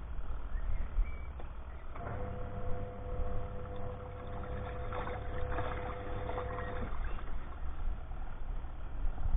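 Mini washing machine's wash motor running with a steady hum as it churns towels in water. It stops about seven seconds in, pausing as it does between its automatic reversals of direction.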